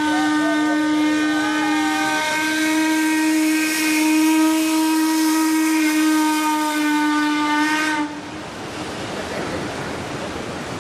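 Steam whistle of the 1901 paddle steamer Uri blowing one long, steady blast that cuts off suddenly about eight seconds in. Then comes the rushing wash of the paddle wheels.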